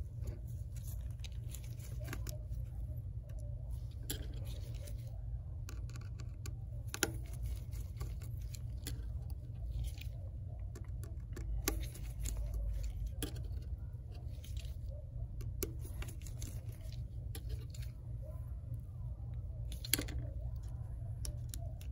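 Faint, scattered small clicks and scrapes of a precision Phillips screwdriver working the tiny bracket screws inside an iPhone 8 Plus, over a steady low hum.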